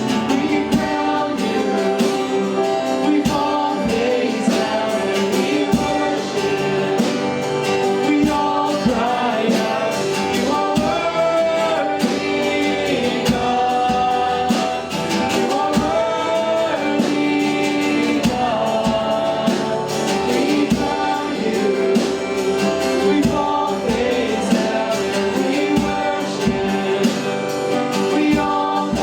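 A worship song: voices singing together over guitar accompaniment.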